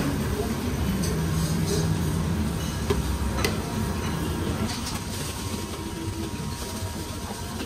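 Busy kitchen at a live pasta station: a steady low rumble, with a few light clinks of metal utensils against pans as a chef cooks pasta in a pan.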